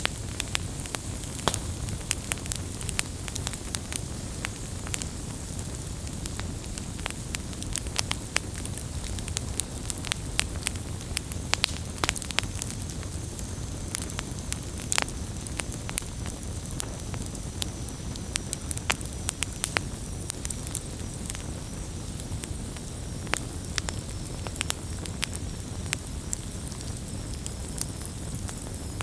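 Wood campfire burning, with frequent sharp crackles and pops over a steady low rumble of the flames. A faint, thin, high whistle joins about halfway through.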